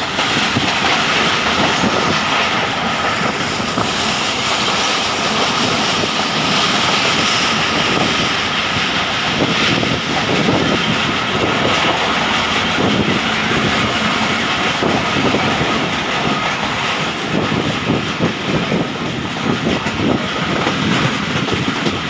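Passenger train running along the line: a steady, loud rush and rumble of the coaches with wheels clattering on the rails.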